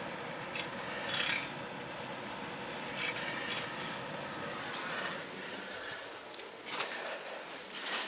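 Forced air from an oil furnace rushing out of a heating register as a steady hiss, with intermittent scraping and rubbing close to the microphone.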